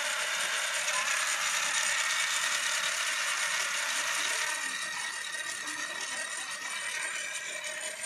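Small DC drive motors and plastic gearboxes of an Arduino-controlled toy car running, a steady mechanical whir. It drops somewhat in level about four and a half seconds in.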